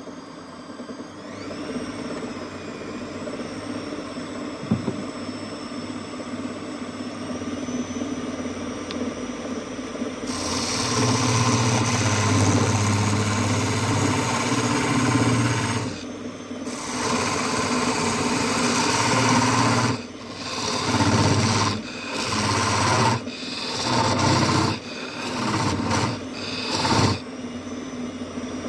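Wood lathe running with a steady motor whine. About ten seconds in, a turning tool starts cutting the spinning wood with a rough scraping noise. Toward the end the cutting comes in short passes, stopping and starting several times.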